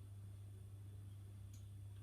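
A washing machine's drum at rest between turns during a wash: a faint steady low hum, with one small click about one and a half seconds in.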